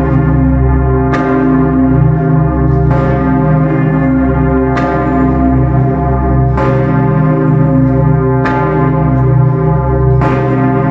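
The cast bronze swinging bells of Bucharest's People's Salvation Cathedral, cast by Grassmayr, ringing together in a full peal. A deep steady hum sits under a fresh stroke about every two seconds.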